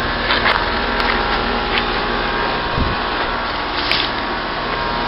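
Bryant Evolution two-stage heat pump's outdoor unit running steadily, a constant hum and rush of the condenser fan and compressor. A few light clicks and snaps sound over it, about once a second.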